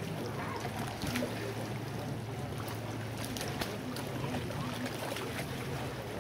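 Outdoor lake ambience: a steady low hum, like a distant motor, under a faint even hiss, with a few scattered soft clicks.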